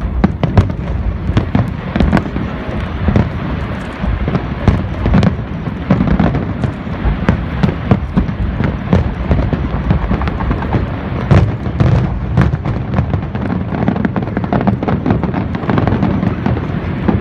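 Aerial fireworks display: a dense, unbroken barrage of bangs and crackles, many a second, over low booms.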